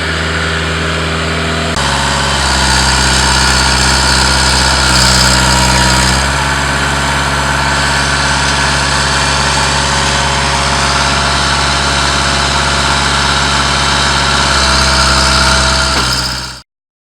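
Bobcat 430 mini excavator's diesel engine running steadily. Its pitch and loudness step up about two seconds in and shift again around six and fifteen seconds. It cuts off suddenly near the end.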